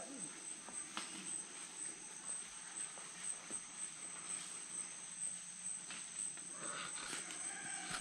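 Steady high-pitched insect chorus in the rainforest canopy: two held notes, the higher one pulsing rapidly, with a few faint clicks.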